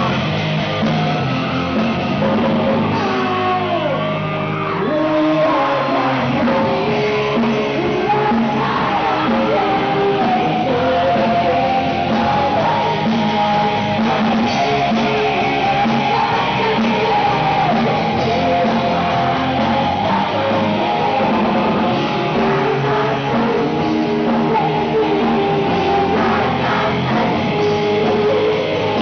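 Live rock band playing a song on electric guitars and drums, with a lead singer singing.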